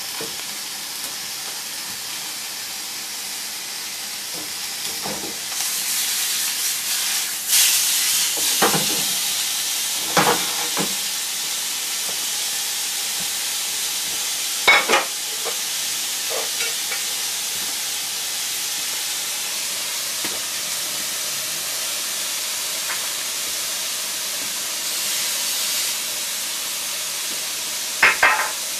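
Food sizzling as it fries in a skillet, a steady hiss that swells now and then, broken by a few sharp knocks and clinks against the pan.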